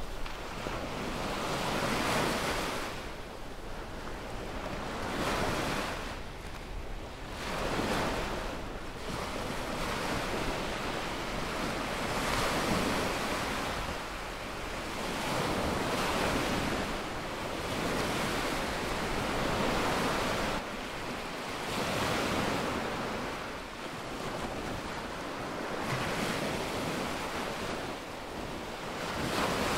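Small waves breaking and washing up a sandy beach, the surf swelling and fading every three to four seconds.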